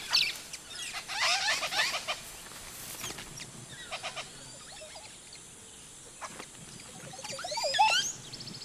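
Montezuma oropendola calls: liquid, gurgling sliding notes, once about a second in and again, louder and rising in pitch, near the end.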